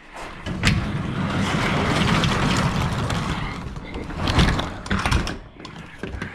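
Overhead garage door pulled down by its rope, its rollers rattling along the tracks for several seconds. There are loud knocks about four and a half seconds in as the door comes down.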